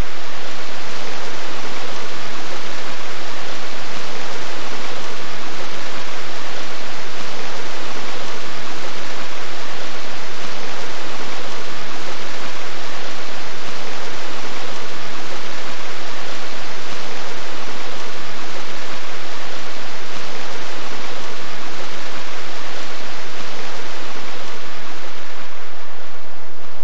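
Loud, steady rush of water from a waterfall and stream.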